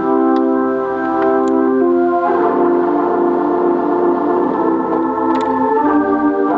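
Electric organ playing full, held gospel chords, changing chord about two seconds in and again near the end.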